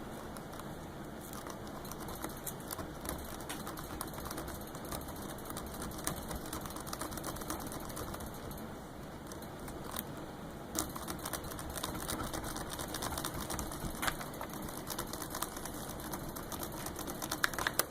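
Master padlock being raked with a thin owl-feather quill pick: continuous fast, fine clicking and rattling as the pick scrubs in and out over the pin tumblers.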